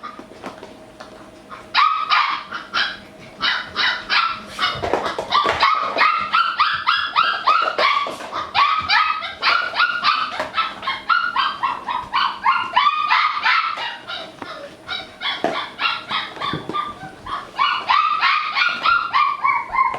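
Labradoodle puppies yipping and barking in quick, overlapping high-pitched calls, several a second, starting about two seconds in and going on almost without a break.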